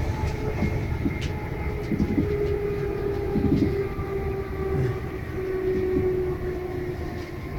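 Inside a moving passenger train: a steady rumble of the carriage running on the track, with a steady whine and a few faint clicks.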